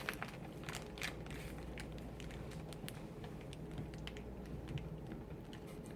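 Faint, irregular light clicks and taps of toy packaging being handled, with a few soft crinkles.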